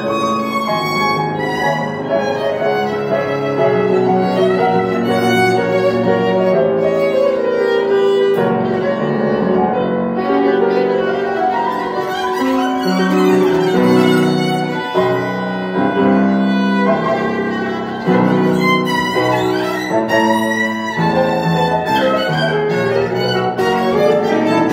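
Violin and grand piano playing together: the bowed violin carries a melody of held notes over the piano accompaniment.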